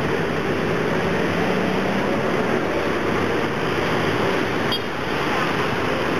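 Steady noise of busy city street traffic: cars, taxis, buses and motorbikes blended into one continuous din, with a short dip just before five seconds in.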